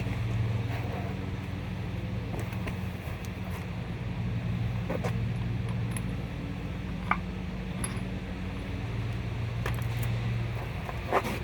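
A steady low engine hum with a few scattered light metallic clinks and knocks; the loudest knock comes near the end.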